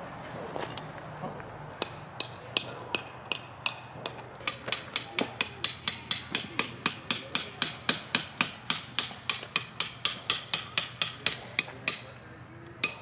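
Metal tent stakes being hammered in: sharp, ringing strikes, a few slow ones at first, then a steady run of about three a second that stops near the end.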